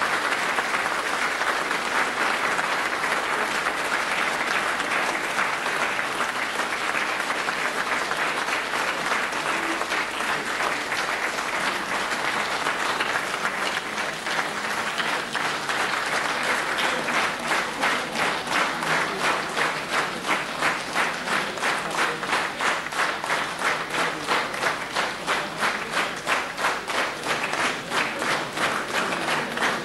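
A large crowd applauding: dense, even clapping that about halfway through falls into rhythmic clapping in unison, some two to three claps a second.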